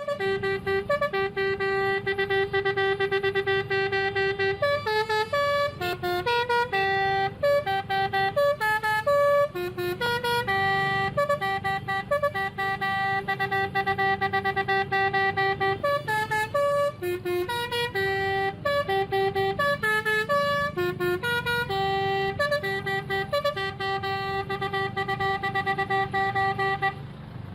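Bus 'telolet basuri' musical horn playing a melody: a long tune of held notes and quick runs, with a low hum underneath. It stops shortly before the end.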